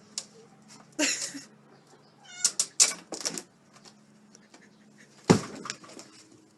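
A cat meowing: a few short calls spaced out with pauses, the loudest near the end.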